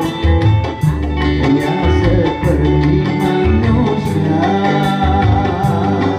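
Live dangdut band playing: electric guitars and a melodic lead over bass and drums with a steady beat.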